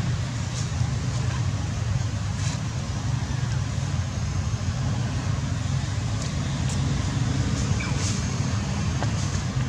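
Steady low rumble of road traffic and vehicle engines, even in level, with a few faint high ticks.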